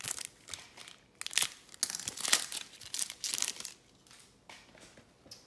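Wrapper of a Topps Star Wars trading card pack crinkling and tearing as it is ripped open by hand: a run of sharp rustles and rips, loudest in the middle, that dies down after about three and a half seconds.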